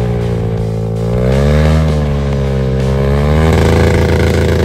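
Off-road dirt bike engine revving under load as the bike is worked up a muddy slope. The pitch rises about a second in, dips, climbs again, and jumps to a higher, steady rev a little past halfway.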